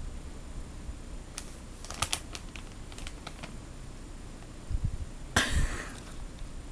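Crisp, irregular crunching of a Doritos tortilla chip being chewed, heard as scattered sharp clicks, then a short rustling burst about five and a half seconds in.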